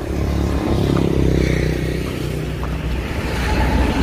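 A motor vehicle's engine running close by, swelling as it passes about a second in.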